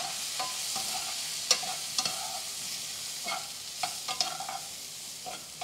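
Halved mushrooms sizzling in a nonstick frying pan while a utensil stirs them through, scraping and tapping against the pan about eight times over a steady hiss.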